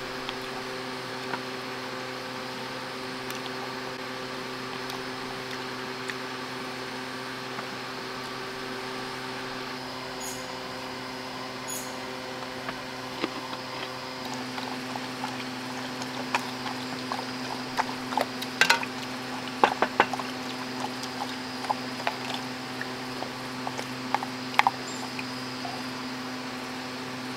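Spoon and fork tapping and scraping on a plate as someone eats, in scattered clicks that pick up in the second half, over a steady hum.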